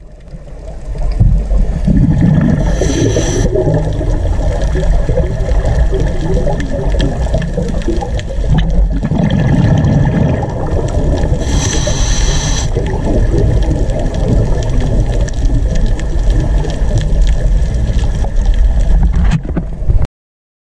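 Underwater noise picked up by a diver's camera: a steady low rumble of water and gurgling bubbles, broken twice, about nine seconds apart, by a short high hiss. This is the pattern of a scuba diver breathing through a regulator.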